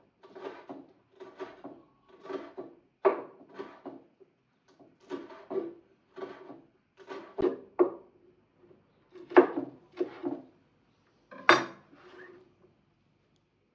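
Rhythmic handling sounds of food preparation: short noisy strokes, roughly one or two a second, with a few sharper, louder ones.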